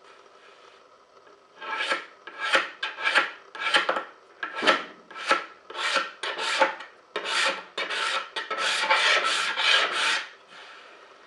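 A hand tool scraping across a wooden board in back-and-forth strokes. About ten separate strokes come at roughly two a second, starting about a second and a half in, then a faster unbroken run of strokes stops about ten seconds in.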